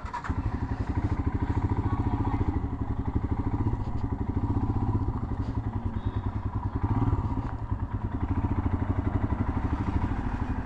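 Royal Enfield Himalayan's single-cylinder four-stroke engine running at idle with a quick, even pulsing beat, coming in abruptly at the start.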